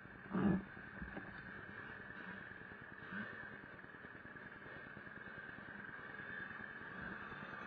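Vintage Vespa scooters riding past, their small engines running steadily, with a short loud thump about half a second in.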